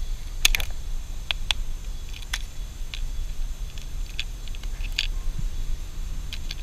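Light, irregular clicks and taps of a wooden stick prodding and scraping a burnt-out iPhone across grit-covered pavement, the sharpest cluster about half a second in, over a low steady rumble.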